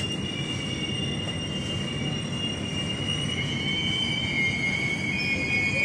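Train wheels squealing against the rails as the coach rolls slowly, a long high squeal over the low rumble of the running gear, with a second squeal tone joining about two seconds in. Flange squeal of this kind is typical of a train taking a curve.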